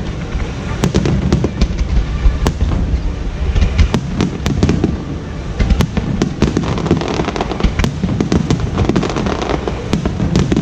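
Fireworks display finale: a rapid, continuous barrage of shells bursting, with dense sharp cracks over a steady low rumble.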